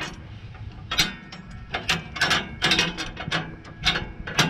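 Irregular metallic clicks and clacks of hand tools and hydraulic fittings being handled.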